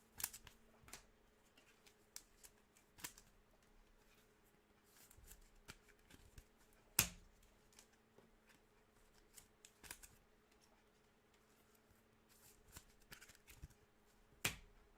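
Trading cards being handled and flipped through, with scattered soft clicks and snaps of the card stock, the sharpest about seven seconds in.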